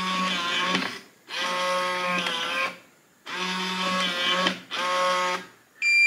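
Kwikset Powerbolt 250 electronic deadbolt's motor whirring in three runs, with short pauses between them, as it drives the bolt out and back during door-handing detection to learn the door's orientation. A single steady electronic beep from the lock starts near the end.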